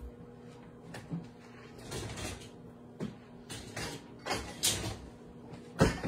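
Microwave oven running with a steady low hum, under a few scattered knocks and rustles of kitchen handling; the sharpest knock comes near the end.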